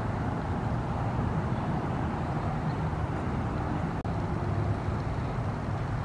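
Steady road and engine noise inside a moving car's cabin, a low rumble with a hiss above it. The sound cuts out for an instant about four seconds in.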